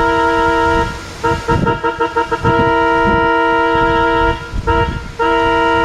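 A train's multi-tone horn sounding a chord in a pattern: a long blast, then a quick run of short toots, another long blast, a brief toot and a final long blast. Low rumbling runs underneath.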